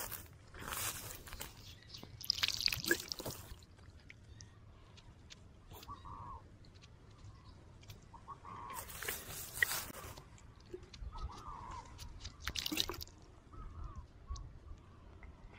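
Several short bursts of rustling and scraping from a hand working through loose, dry soil and picking up stones. The loudest bursts come a few seconds in and again about midway. Between them a bird calls faintly a few times.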